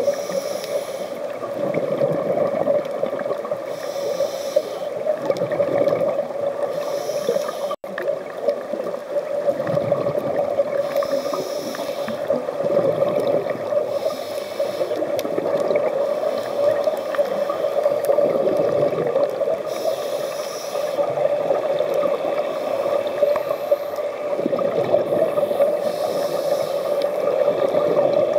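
Scuba diver's breathing heard underwater through the camera housing: bubbly, gurgling bursts from the regulator exhaust every few seconds, over a steady hum.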